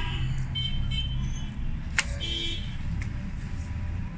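Low, steady rumble of vehicle engines with a few short horn beeps, and one sharp click about two seconds in.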